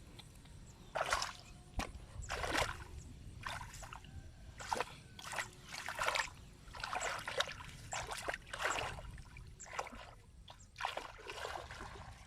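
Water splashing and sloshing in a series of short bursts, roughly one a second.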